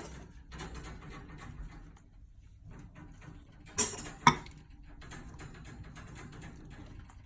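A cat sneezing about four seconds in: a short noisy burst, then a sharp snap half a second later. Around it are soft, quick clicking and smacking sounds of the cat working its mouth, as it does after each sneeze in its fit.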